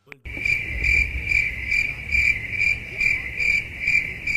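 Crickets chirping, a meme sound effect: a steady high chirp pulsing about two and a half times a second over a low rumble. It starts and stops abruptly.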